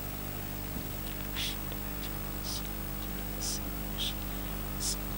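Quiet whispered prayer into a microphone: faint hissing 's' sounds about once a second over a steady electrical hum from the sound system.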